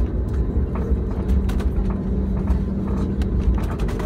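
Cabin sound of an Airbus A320neo taxiing: a steady low rumble of the engines at idle and the rolling aircraft, with scattered light clicks and rattles.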